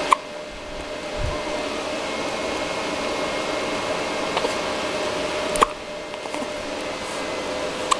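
Three short, sharp hiccups: one right at the start, one about five and a half seconds in, and one near the end, over a steady hum like a fan or air conditioner.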